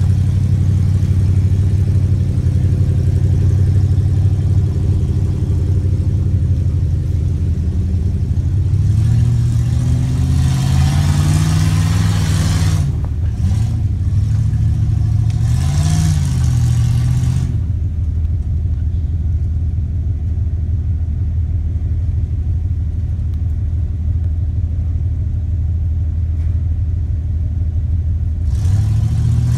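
Jeep engine running low and steady under load as it crawls up a steep rocky climb. The revs rise and fall in two stretches in the middle, then settle, and pick up again near the end.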